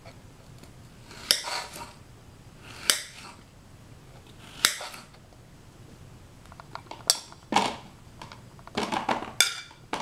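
Serrated kitchen knife cutting cucumber into chunks on a ceramic plate, the blade striking the plate three times a second or two apart. Then the knife scrapes the chunks across the plate into a plastic container, a quicker run of clatters and short scrapes near the end.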